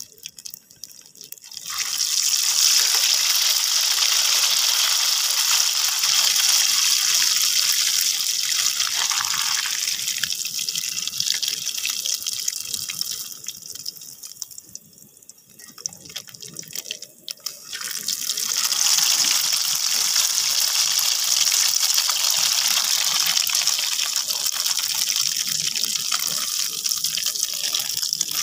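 Hot oil sizzling in a wok as skewered cilok (tapioca balls) coated in egg batter deep-fry. The sizzle dies down for a few seconds in the middle, then comes back loud.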